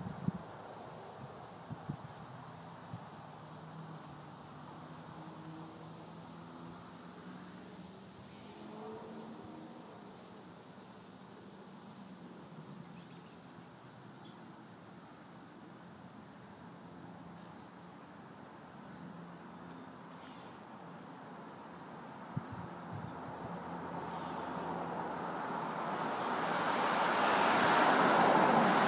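A road vehicle approaching, its tyre and engine noise rising steadily over the last several seconds and loudest near the end as it passes close. Before that, a faint distant engine drone over a quiet background with insects.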